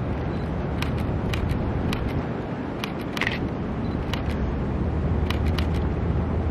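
Distant KLW SE15B diesel locomotive running as it hauls the rail train across the bridge: a steady low rumble that grows a little stronger in the second half. Scattered sharp clicks sound over it.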